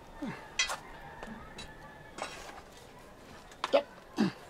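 Hens clucking a few short, falling calls, mixed with sharp metallic clinks and knocks; the loudest clink comes near the end.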